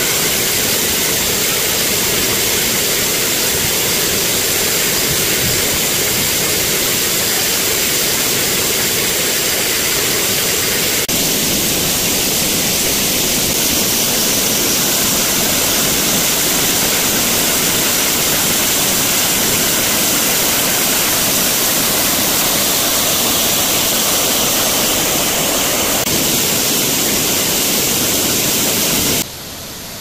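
Waterfall heard up close: a loud, steady rush of falling water. About a second before the end it drops suddenly to a quieter, more distant rush.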